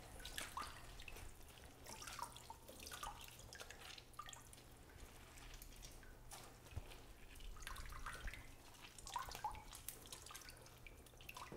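Faint dripping and trickling of water into a tub as a soaked pheasant's feathers are wrung out by hand, in small irregular splashes over a low room hum.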